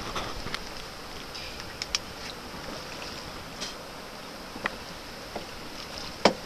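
Wind and water lapping against the hull of a small wooden canoe, with a few sharp knocks, the loudest near the end.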